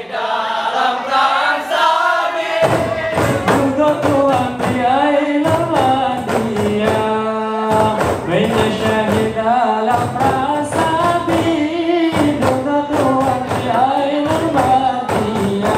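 Acehnese Rapa'i Geleng song: a group of men singing a melodic chant while rapa'i frame drums are struck in sharp, rhythmic clusters between and under the sung phrases.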